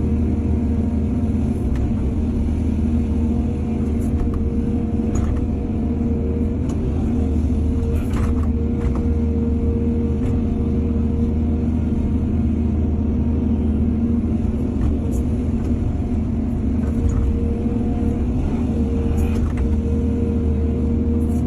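Heavy diesel engine of an excavator running steadily under work, with a deep rumble and a steady hum, and a few sharp metallic knocks along the way.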